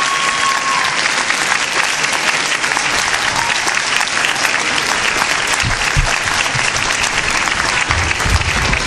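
Audience applauding: dense, steady clapping, with a few low thuds about six seconds in and again near the end.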